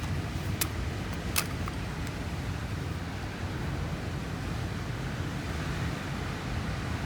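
Steady low rumble of wind and surf, with two sharp clicks about half a second and a second and a half in.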